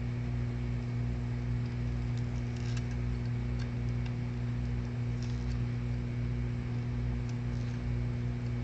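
Steady low electrical hum, even throughout, with a few faint light clicks scattered through it.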